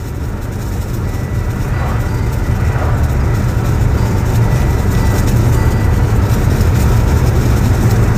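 Wind buffeting and road noise through an open car window while driving, a steady low rumble that grows a little louder over the first few seconds.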